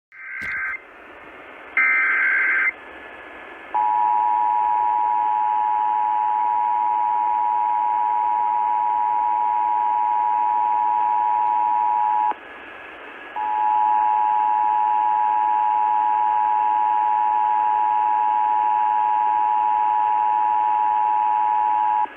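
Emergency Alert System alert opening: two short screeching SAME header data bursts, then the two-tone attention signal (853 and 960 Hz together), a steady dual tone that breaks off for about a second roughly twelve seconds in and then resumes, over a steady hiss.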